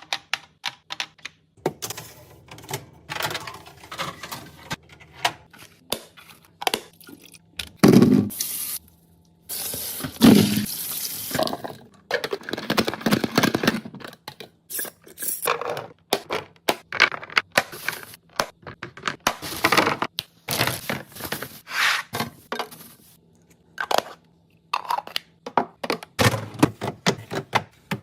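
Skincare bottles and jars being handled and set into a small fridge: a run of quick clicks and clacks, with a few longer noisy stretches in the middle.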